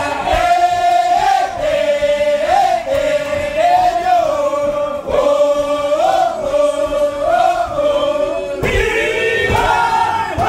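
A group of people singing together in unison: a chant-like tune with long held notes, loud and steady.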